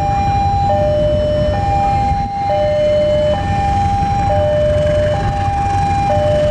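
Railway level-crossing warning alarm sounding a steady two-tone signal, a higher and a lower tone alternating, each held just under a second, the warning that a train is approaching. Underneath runs the low rumble of a diesel locomotive pulling a passenger train.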